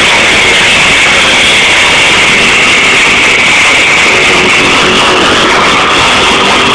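Live heavy rock band with distorted electric guitars, recorded so loud that the microphone overloads and the music blurs into a dense, steady wash; a held guitar note stands out more clearly about four seconds in.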